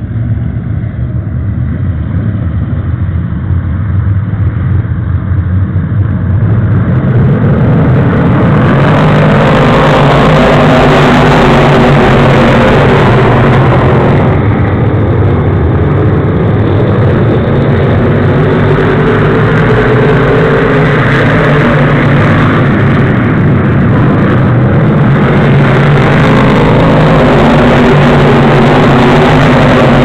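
A pack of pro stock race cars running laps together, the engines swelling over the first several seconds as the field comes around, then a loud, steady blend of several engines.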